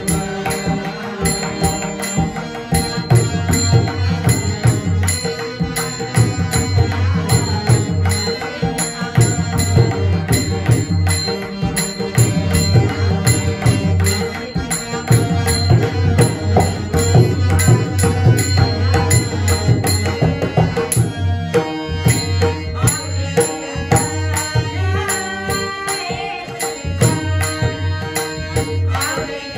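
Marathi devotional bhajan music, with a pakhawaj drum keeping a steady rhythm under a continuous melody.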